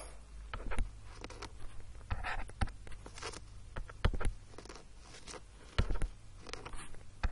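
Stylus working on a graphics tablet: scattered light taps and clicks and a few brief scratchy strokes, over a low steady hum.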